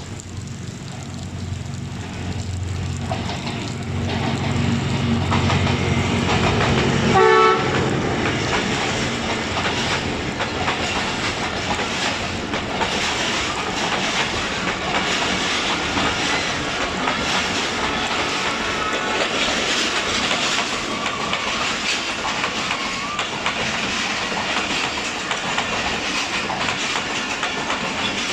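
ZCU-20 diesel-electric locomotive approaching with its engine running, giving a short horn blast about seven seconds in, then the train passing at speed with the carriage wheels clattering over rail joints, in heavy rain.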